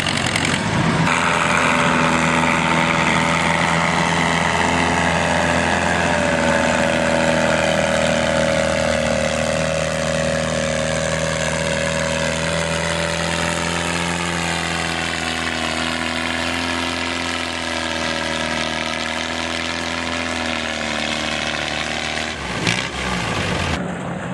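Small vintage farm tractor's engine running steadily under heavy load as it drags a weight-transfer pulling sled, its pitch drifting slowly during the pull. There is a single sharp clunk near the end.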